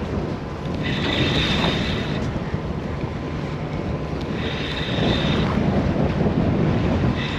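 Wind buffeting the microphone on a boat at sea, over a steady low rumble. Three times, about three seconds apart, a brief higher whirring tone rises over it for about a second.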